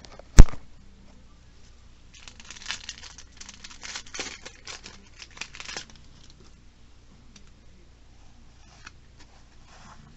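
A sharp knock about half a second in, then a Yu-Gi-Oh! booster pack's foil wrapper being torn open and crinkled for about four seconds, followed by faint clicks of the cards being handled.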